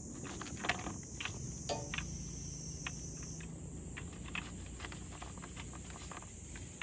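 Light irregular plastic clicks and taps from handling a hand-pump garden sprayer, its pump handle, hose and spray wand, over a steady high-pitched insect drone.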